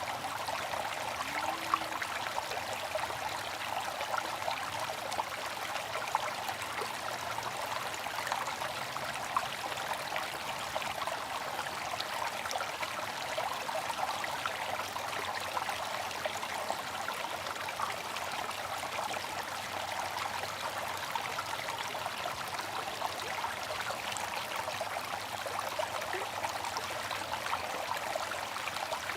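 Bamboo water fountain: a steady trickle of falling water, with small splashes flickering through it.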